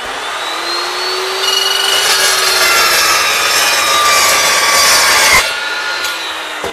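Evolution S355 14-inch cold-cut metal saw motor spinning up to a steady whine, then its blade cutting through steel with a loud rasping noise for about four seconds. The cutting noise stops sharply about five seconds in as the blade breaks through, and the motor begins winding down near the end.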